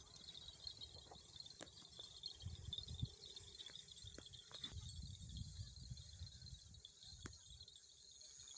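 Insects chirping steadily in a high-pitched drone, with low rumbles and a few faint clicks underneath.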